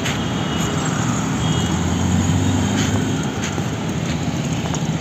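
Street traffic: motor vehicle engines running as cars and scooters pass, with a louder low rumble from a passing vehicle between about one and a half and three seconds in.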